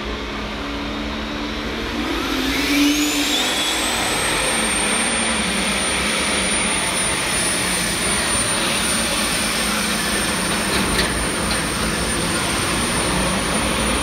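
Modified pulling tractor at full power hauling a sled, a loud steady engine noise with a high whine that climbs over a few seconds, holds steady, and drops away near the end.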